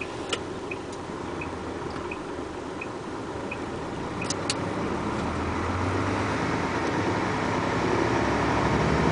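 Car engine and road noise heard inside the cabin, growing steadily louder as the car gathers speed. For the first few seconds a turn-signal indicator ticks about every 0.7 s, and a couple of sharp clicks come about four seconds in.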